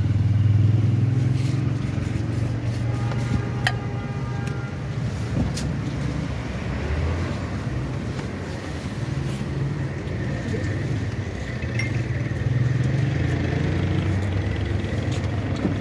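Steady low hum of road traffic and vehicle engines running, with a few light clicks.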